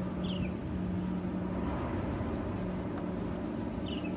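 Steady low mechanical hum from distant machinery or an engine, with a droning tone that drops out now and then. Two brief high chirps come through, one just after the start and one near the end.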